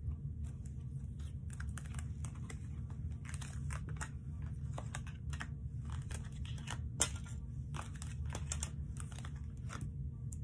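A deck of tarot cards being shuffled by hand: an irregular run of quick card flicks and rustles, with one sharper snap about seven seconds in, over a steady low hum.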